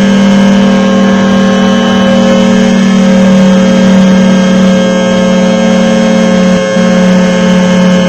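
Federal Signal 2T22 two-tone electromechanical warning siren sounding a steady, very loud two-note chord at running speed, wavering slightly, with a brief dip in level just under seven seconds in.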